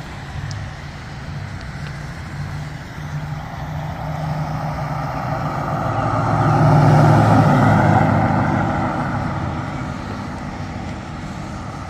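A road vehicle passing: engine and tyre noise grows for several seconds, is loudest about seven seconds in, then fades away over a steady low background hum.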